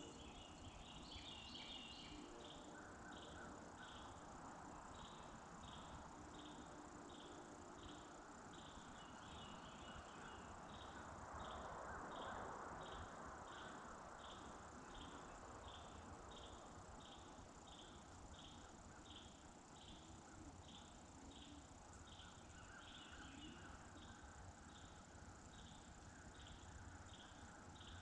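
Faint insect chirping, evenly spaced at a little under two chirps a second, over a low hush of the woods at night.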